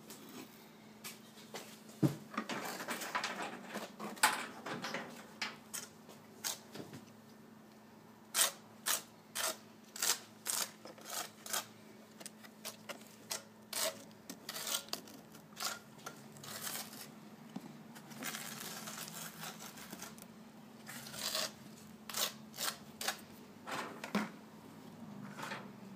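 Red plastic tile-leveling caps being twisted down onto their clips and ceramic tiles being handled: a run of sharp plastic clicks, about two a second through the middle, with scraping and rubbing in between. A faint steady hum lies underneath.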